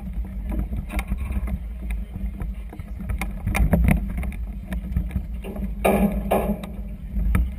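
Low rumble of wind and choppy water against the hull of a moored vessel, with scattered knocks and a brief louder rush about six seconds in.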